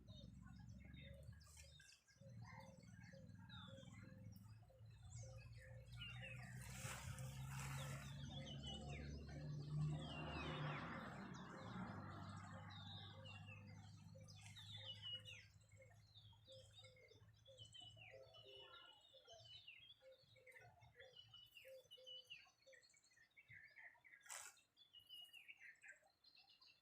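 Many birds chirping and calling at once. A low rumble swells under the birdsong, peaks about ten seconds in and fades away by about fifteen seconds.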